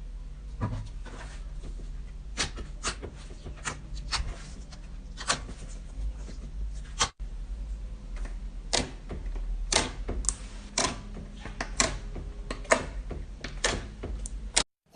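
Slime being handled, giving sharp, irregular clicking pops over a low steady hum.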